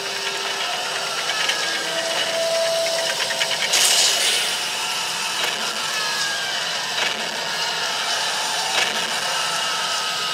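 Pearl drum kit played continuously in a full rock beat, with cymbals washing over the drums and a loud crash cymbal hit about four seconds in.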